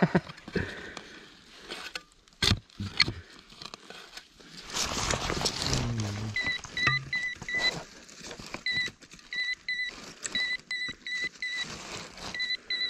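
Shovel scraping and knocking in the dirt of a dig hole, then a handheld metal-detecting pinpointer beeping in short, rapid, repeated high-pitched pulses from about halfway on, signalling metal in the hole.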